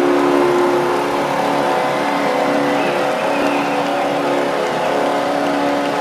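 Nashville Predators' arena goal horn blaring in long, steady blasts, with a cheering crowd underneath.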